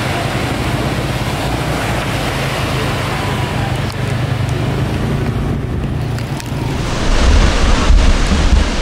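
Ocean surf breaking on the beach, a steady wash of noise, with wind buffeting the microphone that grows heavier about seven seconds in.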